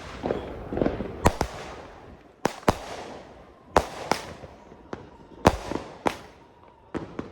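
A multi-shot consumer firework cake going off: a run of sharp bangs about once a second, several coming in quick pairs, each dying away in a short echo.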